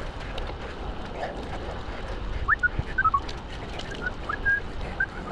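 Low wind rumble and road noise from a moving bicycle, with a few short whistled notes about halfway through: a quick rising note, then a couple of falling ones, then a few brief level ones.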